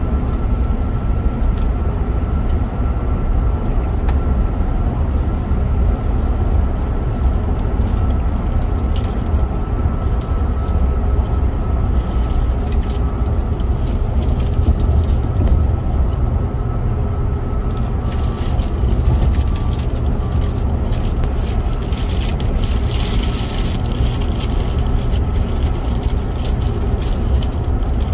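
Car cruising at highway speed, heard inside the cabin: a steady low rumble of engine and tyres on the road, with a faint steady whine over it. About two-thirds of the way through, a rougher hiss joins in on top.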